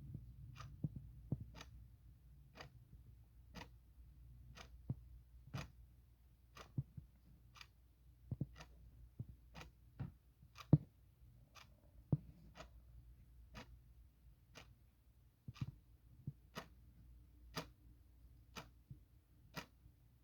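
Clock ticking steadily, about one tick a second, over a faint low hum. A few irregular low thumps fall between the ticks, the loudest about eleven seconds in.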